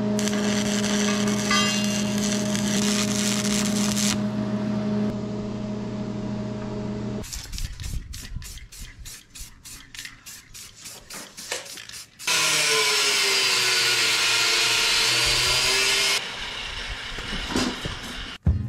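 Arc welding on the cracked steel mower deck: a steady electric buzz with crackle for about seven seconds. A run of quick, evenly spaced scratchy strokes follows, then about four seconds of an aerosol spray-paint can hissing as paint goes onto the repaired deck, with a few sharp clicks near the end.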